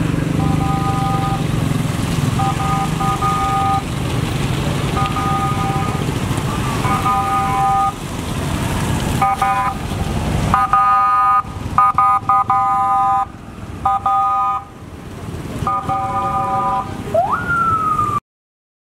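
A vehicle horn sounds in about nine short two-tone blasts, irregularly spaced, over a steady low engine rumble that drops away about halfway through. Near the end comes one wail that rises sharply and then slowly falls.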